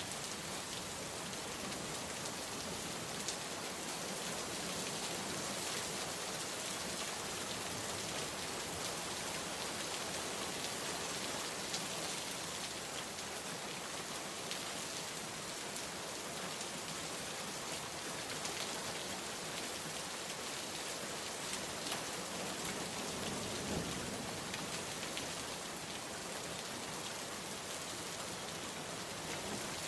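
Steady rain falling, an even hiss of many drops with small individual drop ticks scattered through it.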